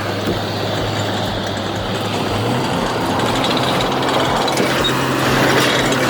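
Heavy logging truck's diesel engine running hard, with its pitch rising a little about two and a half seconds in as the revs climb.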